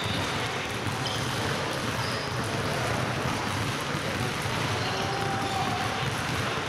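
Several basketballs dribbled at once on a wooden gym floor, the bounces blurring into a steady clatter in the echoing hall.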